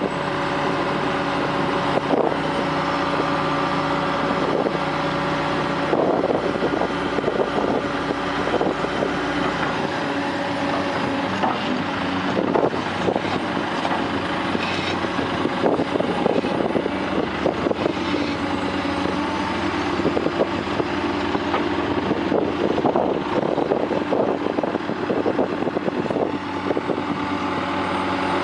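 Large Caterpillar tracked excavator's diesel engine and hydraulics running steadily while it digs, with scattered knocks and clanks from the bucket working in the mud.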